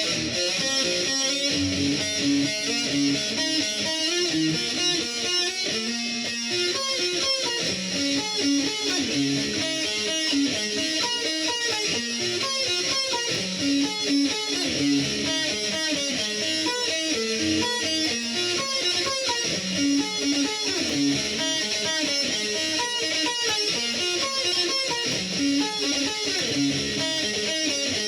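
Dean MLX electric guitar played through a Boss Katana Mk2 amplifier on high gain, a heavily distorted metal riff with a scooped-mid, V-shaped EQ tone.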